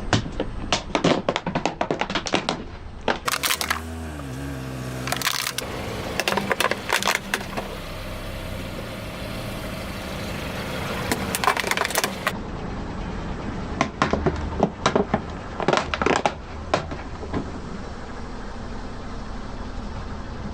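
Brittle objects crushed under a car's tyres: several bursts of sharp cracks and crunches over a car engine running at idle.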